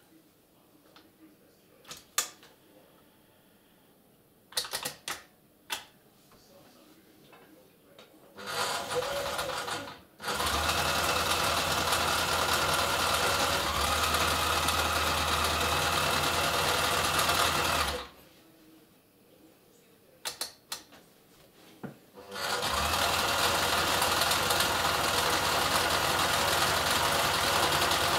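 Kenmore Ultra Stitch 12 sewing machine zigzag-stitching through thick layered fabric. It runs in stretches: a short run about eight seconds in, a steady run of about eight seconds, then a pause with a few clicks, and it runs again from about twenty-three seconds on. A few sharp clicks of the machine being handled come first.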